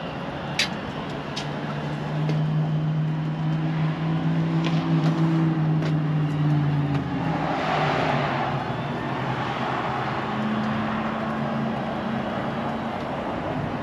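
Fire engine's electric-hydraulic cab-tilt pump running as the tilt cab is lowered: a sharp click just after the start, a steady hum from about two seconds in, a hiss in the middle, then the hum again at a higher pitch near the end.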